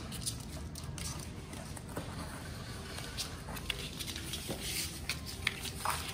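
Puppies moving about in and against a cardboard box, their paws and claws making scattered light scratches and taps on the cardboard and tile.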